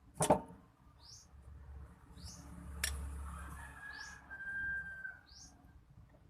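A small bird repeating one short, high chirp about four times, roughly every second and a bit. A sharp knock about a third of a second in is the loudest sound, with a lighter click near the middle.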